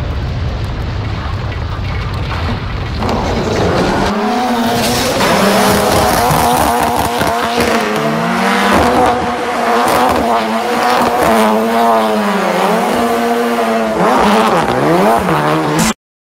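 Ford Fiesta rally car's engine revving hard while drifting, its pitch climbing and dropping again and again with the throttle and gear changes, with tyre squeal. A low rumble fills the first few seconds, and the sound cuts off suddenly near the end.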